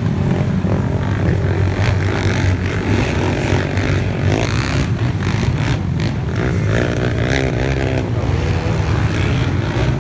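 Several racing ATV engines run at speed around a dirt track, heard as a steady, loud low drone from the pack.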